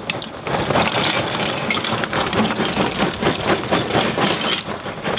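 Lump charcoal pouring from a paper bag into a ceramic kamado grill's firebox, many pieces clattering continuously onto the coals and wood chunks below.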